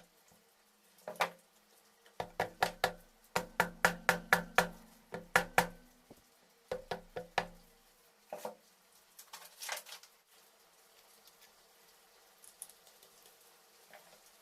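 A run of sharp knocks or taps, about three a second for a few seconds, then a few scattered ones, as in hand work on a motorcycle engine.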